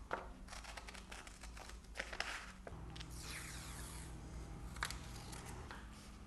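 Paper sticky notes being handled and pressed: soft rustling and crinkling with a few light clicks. A faint low hum comes in about halfway through.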